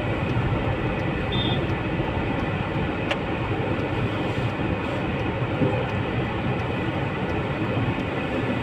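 Steady engine and traffic noise heard from inside a car's cabin as it moves slowly in traffic, with a faint short beep about a second in.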